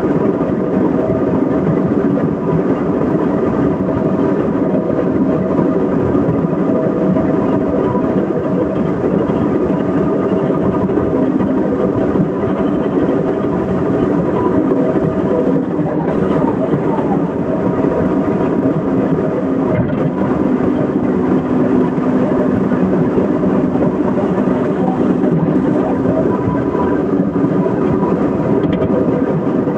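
Excavator's diesel engine and hydraulics running steadily, a loud constant drone with a few steady tones through it.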